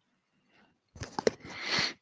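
Silence, then a few small mouth clicks about a second in and a sharp breath drawn in close to the microphone, swelling until it cuts off at the end.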